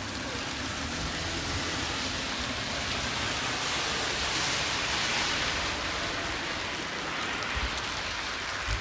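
Steady rain falling, an even hiss that swells a little in the middle.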